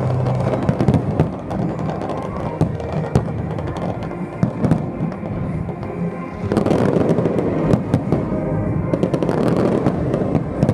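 Fireworks display: aerial shells bursting in a string of sharp bangs, with music playing. About six and a half seconds in, the bursts thicken into a louder, continuous barrage of bangs and crackle.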